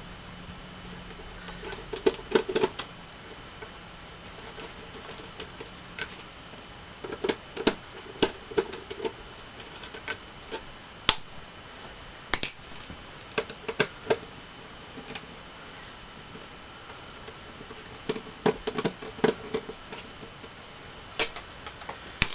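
Scattered clicks and clacks of an Xbox 360 DVD drive and its small screws and parts being handled and worked on during disassembly, in short irregular clusters with pauses between.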